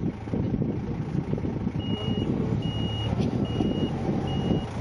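Telehandler's diesel engine running as its warning alarm beeps four times, evenly, starting a couple of seconds in.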